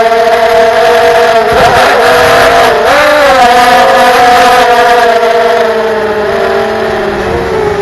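FPV quadcopter's electric motors and propellers whining in flight, several pitches together that shift with the throttle: a brief rise about three seconds in, then a slow fall.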